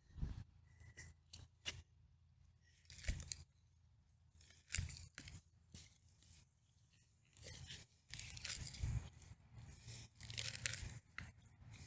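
Loppers cutting and tearing through the dense, matted roots of a root-bound cat palm's root ball: irregular crunches and tearing, coming more thickly in the second half.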